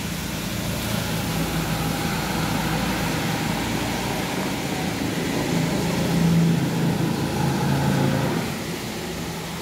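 Heavy trucks passing on a wet highway: a steady engine drone over tyre hiss from the wet road, swelling to its loudest past the middle and dropping off near the end.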